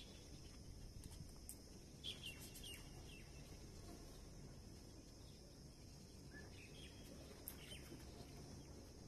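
Near silence: faint steady outdoor background noise, with a few faint short chirps and clicks about two seconds in and again near the end.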